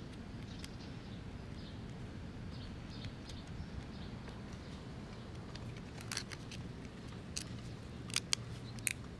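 Faint small ticks and scratches of fingertips picking brittle, lifted walnut veneer and old glue from a chair backrest, over a steady low hum. A few sharper clicks come close together in the last few seconds.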